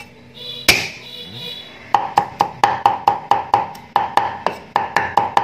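Knife mincing garlic on a wooden cutting board. One sharp knock comes about a second in, then from about two seconds in quick, even chopping strokes, about five a second, each with a short ringing tone.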